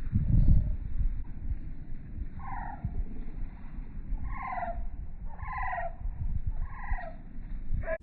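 A bird calling from the lakeside: a series of about five short, falling, nasal calls, one every second or so, starting about two and a half seconds in, over a low rumble.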